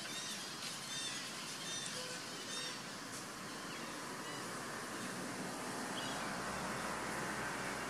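Outdoor ambience with a steady hiss and a run of short high chirps over the first three seconds. A low wind rumble on the microphone comes in about six seconds in.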